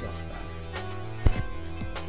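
Background music with held tones and a steady bass, and one sharp hit a little over a second in.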